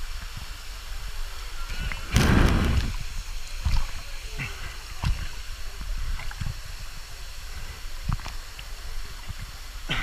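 Pool water sloshing and splashing right against the microphone of a camera held at the water's surface. There is a louder splash lasting about a second a little after two seconds in, and scattered small knocks.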